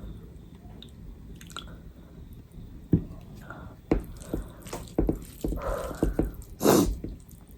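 Close-miked eating of curry and rice: wet chewing and mouth-smacking sounds, sparse at first and coming as a string of sharp clicks in the second half, with one louder, longer noisy sound near the end.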